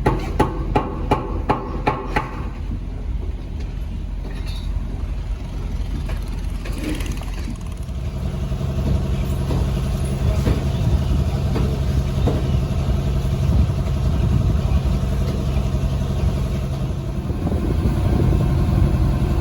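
Boat engine running steadily, its hum growing a little louder and steadier about eight seconds in. A quick run of about seven sharp knocks in the first two seconds.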